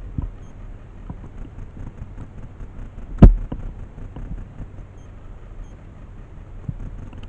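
Low rumbling wind and handling noise on the microphone, with faint scattered knocks and one sharp, loud crack a little over three seconds in.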